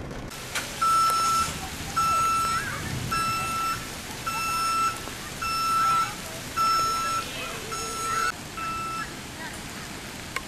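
An electronic beeper sounds eight steady, high-pitched beeps, each about half a second long and about a second apart, stopping about a second before the end, over a steady wash of rain and running water.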